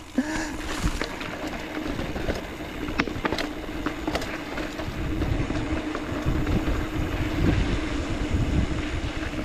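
Mountain bike rolling along a dirt trail: tyre noise with scattered clicks and rattles from the bike, over a steady hum.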